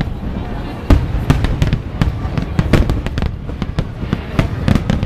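Fireworks display: a rapid, irregular series of bangs and crackles over a continuous low rumble, with the loudest bang about a second in.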